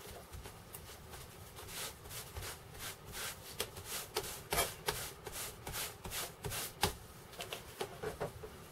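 A cloth rubbing neat's-foot oil into the rough flesh side of a leather strap: a run of short, scratchy rubbing strokes, about two or three a second.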